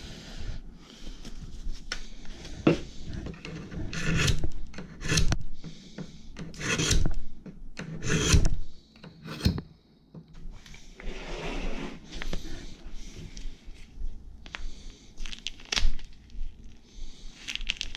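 Hands pulling on and working into disposable gloves: a run of short rubbing and rustling sounds of rubber against skin and plastic, with a few knocks.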